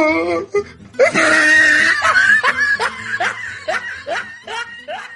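A person laughing: a loud burst about a second in, then a string of short 'ha' syllables that come further apart and fade toward the end.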